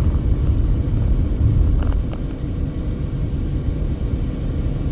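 Steady low road and wind rumble inside a passenger car's cabin at highway speed, on a stretch with strong crosswinds.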